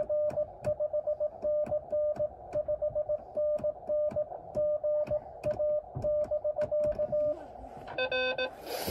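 Morse code heard through a ham radio receiver: a steady beep keyed in dits and dahs, with frequent sharp clicks of static. About seven seconds in, the received signal stops and there is a brief hiss. Then a louder, buzzier Morse tone starts keying.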